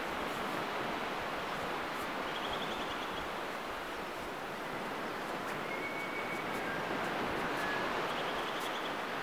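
Steady wash of surf on a beach, an even rushing noise with no breaks, with a few faint high chirps over it about two, six and eight seconds in.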